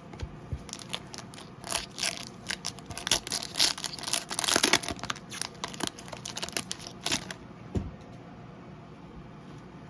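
Trading card pack wrappers crinkling and tearing as packs are opened and handled, a busy run of crackling that stops about seven seconds in.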